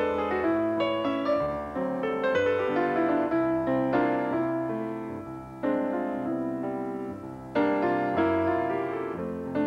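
Solo piano music: struck notes and chords ring and fade away, with new phrases coming in loudly about halfway through and again near the end.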